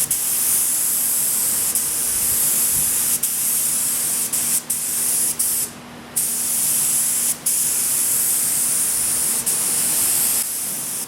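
Air spray gun hissing steadily as it sprays primer filler onto a car body, cutting out briefly a few times, longest about six seconds in. A faint low steady hum runs beneath it.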